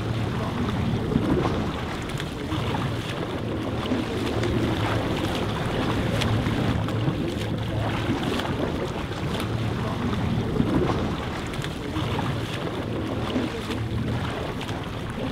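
Escort boat under way at sea: a steady low engine hum under the wash of the sea, with wind buffeting the microphone.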